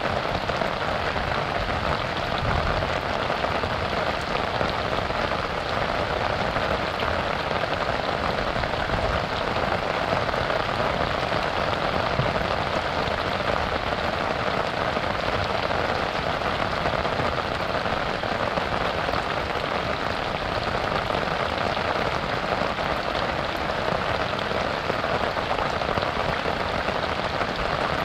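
Steady rain falling on a river, an even hiss of drops that holds constant with no let-up.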